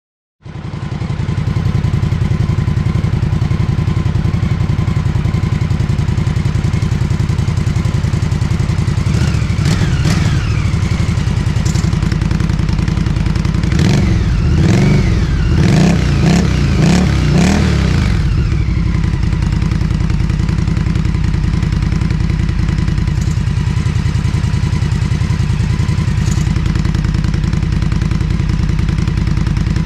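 Indian bobber motorcycle's V-twin engine idling, with a couple of throttle blips about ten seconds in and a run of repeated revs, rising and falling, from about 14 to 18 seconds, then back to a steady idle.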